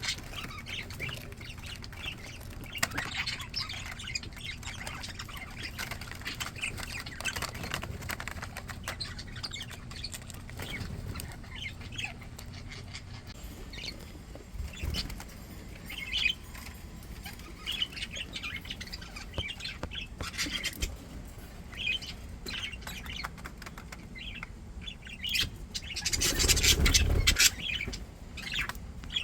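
Pet budgerigars chattering and chirping continuously, with a loud burst of wing flapping near the end.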